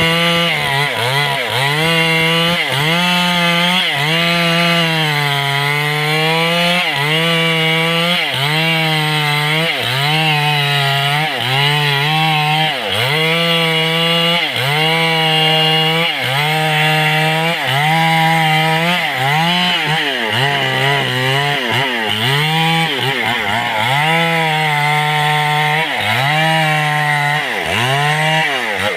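Stihl chainsaw running hard while cutting through a mahogany trunk. The engine pitch keeps dropping as the chain bogs under load and climbing back, about once a second or a little slower, with a deeper drop near the end.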